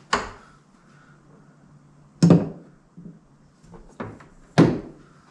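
Three sharp clunks about two seconds apart, with lighter taps between, from a Dodge Ram's wiper motor and linkage assembly being handled and set down into the plastic cowl below the windshield.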